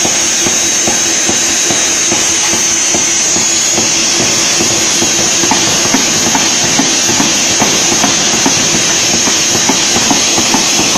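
Pneumatic forging hammer running with a steady hiss and hum, its ram striking a red-hot steel blank a few times a second to forge it into a steel ball.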